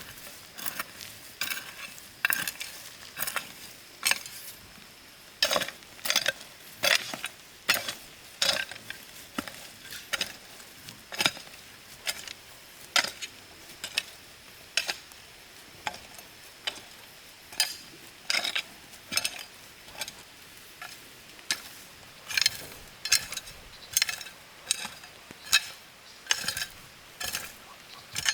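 A hand tool working soil in a steady rhythm: a short, sharp strike or scrape about once every second, with a faint steady high-pitched hum behind it.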